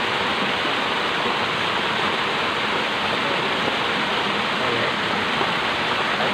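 Small stream pouring over a low drop, a steady, even rush of water.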